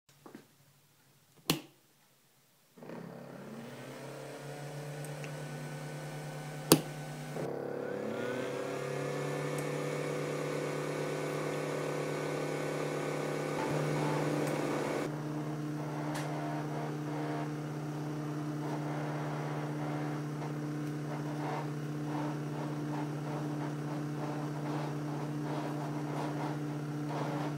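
Homemade ultrasonic misting 3D-print polisher starting up: a couple of clicks, then a steady electric hum about three seconds in. A second hum joins with a rising whine about seven seconds in, and the machine runs on with a steady whir.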